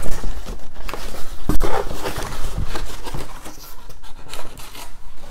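A mailed package being unwrapped by hand: irregular rustling and crinkling of the wrapping and cardboard, with a sharp knock about a second and a half in.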